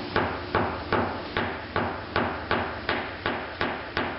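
Light, evenly spaced taps of a 16-ounce hammer on a rounded knockdown tool held against a car body panel, about two and a half taps a second, knocking down a high spot left after a glue-pull hail dent repair.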